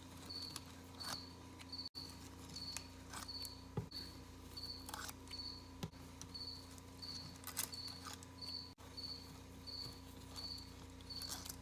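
A cricket chirping steadily, short high chirps about twice a second, with scattered faint metallic clicks and taps of hand tools as the clutch springs are taken off a two-stroke motorcycle engine.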